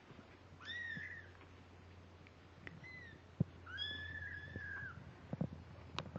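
17-day-old kittens mewing: three thin, high cries, the last and longest lasting about a second. A few sharp knocks are heard among them, the loudest just before the longest cry.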